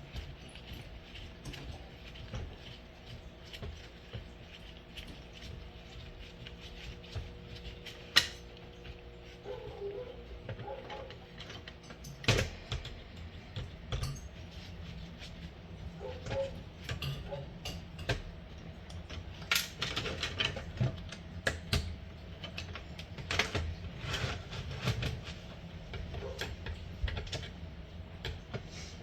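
Irregular clicks, taps and light clatter of small metal and plastic alarm-clock parts and hand tools as the clock's screws are taken out and its insides dismantled, with sharper knocks about eight and twelve seconds in.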